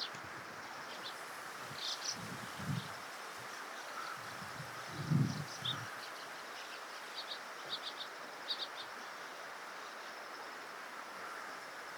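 Outdoor ambience: a steady insect drone with scattered short, high chirps, several in quick clusters in the second half. Two low, muffled bumps sound a couple of seconds in and again about five seconds in.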